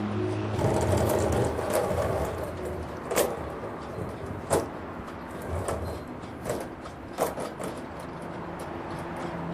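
Irregular sharp knocks and clatter, a few strong single strikes seconds apart among smaller ones, as debris chute sections are handled and hooked on while the hoist wire is winched up.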